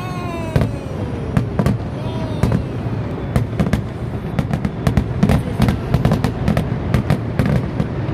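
Fireworks going off in quick, irregular succession: a dense run of bangs and crackles, with a whistle gliding down in pitch at the start.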